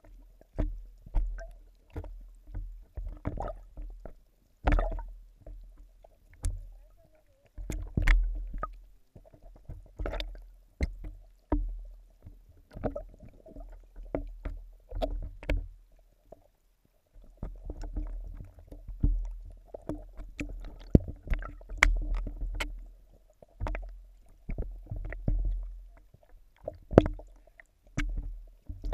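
Pond water heard muffled from underwater through a camera's waterproof housing: a low sloshing rumble with frequent irregular sharp clicks and knocks against the housing.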